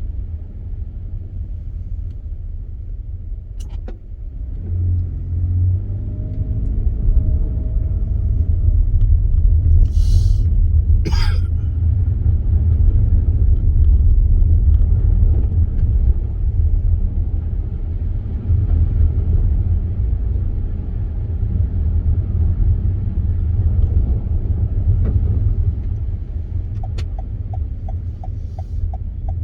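A car driving on snow-covered roads, its engine and tyres making a steady low rumble, heard from inside the car. Two short hissing sounds come about ten seconds in, with a few faint clicks later on.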